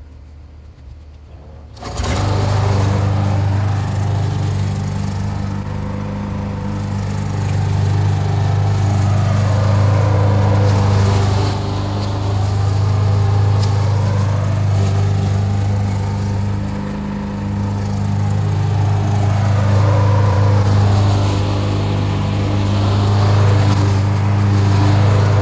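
Walk-behind gas lawn mower engine running steadily while mowing. It comes in suddenly about two seconds in, and its level rises and falls a little as the mower moves through the grass.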